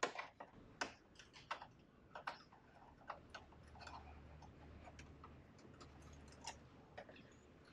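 Faint, irregular light clicks and taps of plastic as fibre pigtails are worked into the routing guides around a plastic splice tray in a fibre enclosure.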